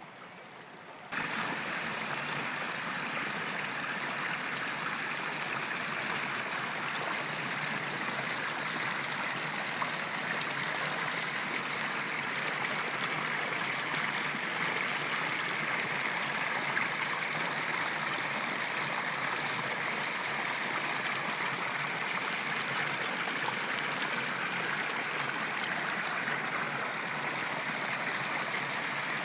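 A river or stream flowing, a steady rush of running water that jumps suddenly louder about a second in.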